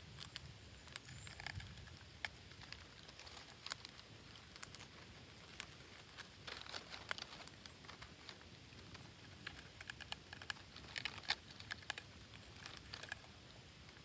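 Parakeets moving about on dry leaves and bark at a tree-hollow nest: scattered light clicks, crackles and rustles of claws and beaks, bunched more thickly about halfway through and again near the end.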